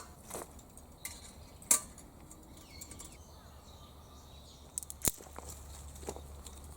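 A few scattered sharp clicks and clinks over a faint low hum, the loudest one about five seconds in: objects being handled.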